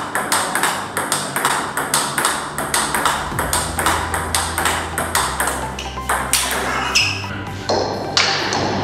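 Table tennis ball in a fast forehand topspin rally: an even, rapid run of sharp clicks as the ball meets bat and table in turn. Electronic background music with a deep bass comes in about three and a half seconds in.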